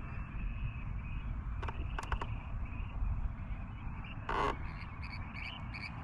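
Steady low outdoor rumble with a few sharp clicks, a brief rush of noise about four seconds in, and near the end a quick run of about five short, evenly spaced animal calls.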